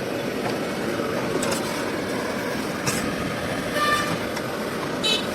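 Steady din of street traffic, with a couple of short vehicle horn toots near the end and a few sharp clicks.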